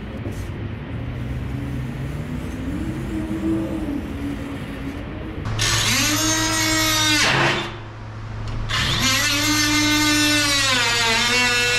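Cordless power tool motor whining as it runs up to speed about halfway in. It winds down for about a second, runs up again, and slows near the end.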